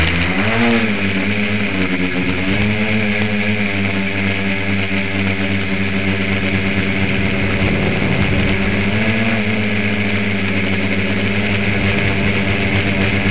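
Tricopter's three electric motors and propellers buzzing loudly and steadily, heard close up from on board the craft. The pitch rises as they spin up at the start and wavers briefly a few times as the throttle changes.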